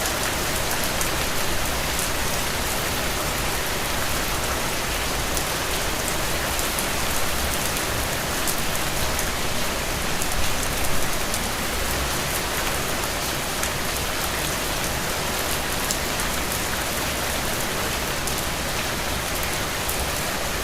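Steady rain falling, with many separate drops pattering and dripping onto a surface, the rain swelling slightly for a moment about halfway through.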